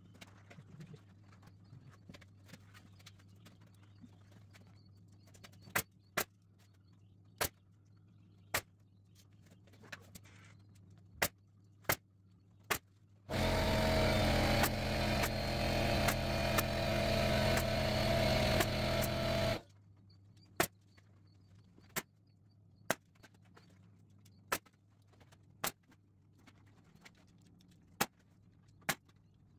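Pneumatic staple gun firing staples into chicken wire and a wooden frame: about fifteen sharp single shots, roughly one a second with gaps. In the middle an air compressor motor runs loudly for about six seconds, then cuts off and the stapling goes on.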